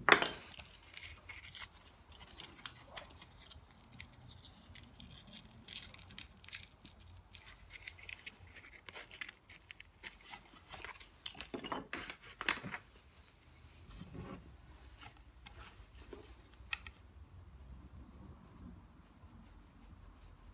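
Wooden-handled hand carving tool scraping and picking at a carved relief: a sharp knock at the start, then many short, irregular scrapes and clicks, busiest a little past halfway, thinning out near the end.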